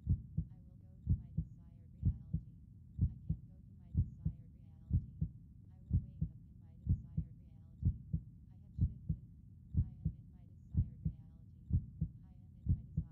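Heartbeat, a steady lub-dub double thump repeating a little under once a second.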